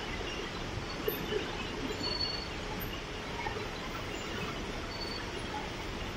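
Steady factory machinery noise: an even hum and hiss with a few faint, brief high squeaks and small ticks.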